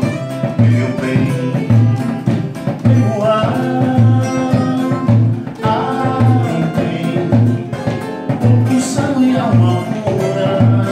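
Samba-enredo played on two strummed acoustic guitars, with a wooden hand drum keeping a steady bass beat and voices singing the melody.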